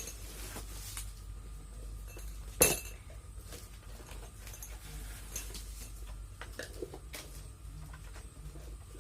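Miniature toy kitchenware clinking and tapping as the pieces are handled and stacked, with scattered small clicks and one sharper clink about two and a half seconds in.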